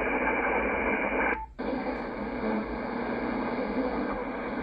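Shortwave static from a Yaesu FTdx10 transceiver's speaker as it is tuned across the 19-metre band: a steady hiss. About a second and a half in, the hiss cuts out for a moment as the receiver switches to a wider filter, then comes back wider and hissier.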